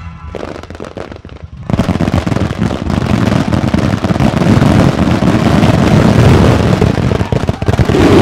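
A fireworks starmine barrage: a few scattered pops, then about two seconds in a dense, loud, continuous volley of overlapping shell bursts begins and keeps going.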